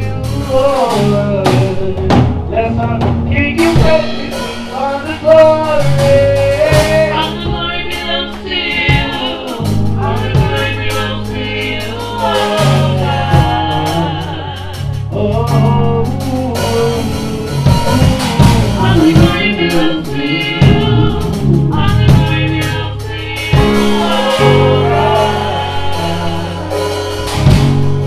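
Gospel choir singing with instrumental backing and drums.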